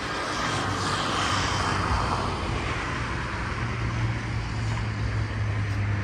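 Road traffic: a motor vehicle passing, its noise swelling and fading about one to two seconds in, with a steady low engine hum that grows louder in the second half.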